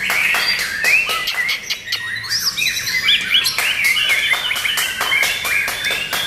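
White-rumped shama singing: a fast, varied run of clear whistled notes with quick upward and downward slurs, mixed with many sharp clicking notes.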